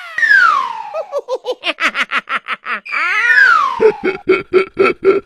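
High-pitched cartoon-style laughter. A falling squeal breaks into a fast run of short "ha-ha-ha" pulses, and this happens twice, the second run lower and steadier in pitch.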